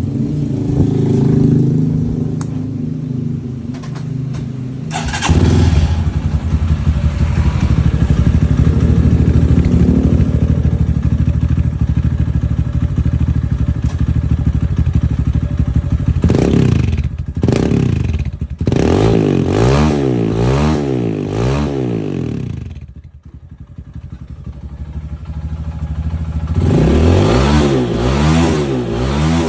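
Fuel-injected motorcycle with a BR megaphone aftermarket exhaust, running and being revved. It is held at raised revs for a long stretch, then blipped up and down several times in quick succession, drops back to a quieter idle, and is blipped again near the end.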